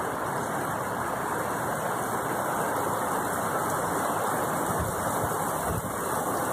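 Rain falling steadily, an even rushing hiss, with a few low bumps about five seconds in.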